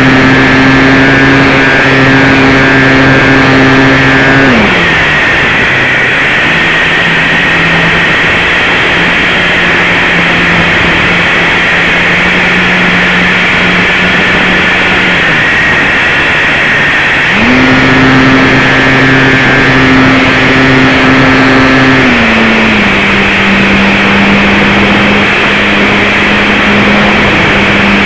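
Model electric plane's motor and propeller, heard from just behind the propeller, running with a loud steady whine over a constant rush of wind. The pitch drops at about four and a half seconds as the throttle is eased back, jumps up again around seventeen seconds, and eases down once more about five seconds later.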